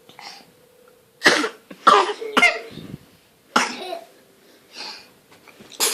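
A baby sneezing over and over: short, sharp bursts, three close together a little over a second in, then another about halfway and one near the end. She has a cold with a runny nose.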